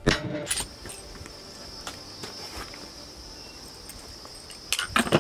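Steady high insect buzz throughout, with a couple of sharp clicks near the start. Near the end comes a short sharp report, the loudest sound: a shot from a Howa Mini Action .300 Blackout rifle firing 190-grain subsonic rounds.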